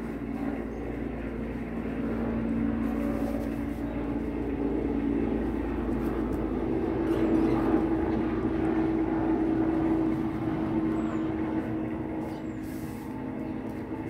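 Low, steady engine hum of a passing motor vehicle. It grows louder toward the middle and eases off near the end.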